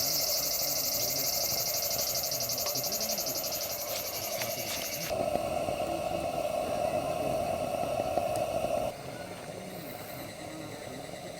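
Insects chirring: a high, rapidly pulsing trill that cuts off suddenly about five seconds in, over a steadier lower drone that swells and then drops abruptly about nine seconds in.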